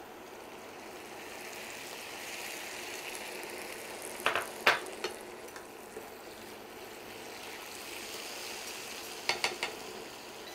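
A chopped vegetable mixture sizzling gently in a frying pan as it is stirred with a silicone spatula. A few sharp clicks of the spatula against the pan come near the middle and again near the end.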